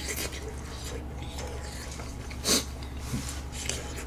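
A person chewing a mouthful of food quietly, with soft mouth noises and one short, louder sound about two and a half seconds in.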